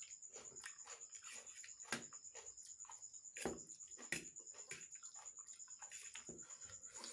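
Faint chewing and slurping of instant noodles and raw onion: irregular wet mouth clicks and smacks, a few louder ones in the middle. Crickets chirp steadily behind.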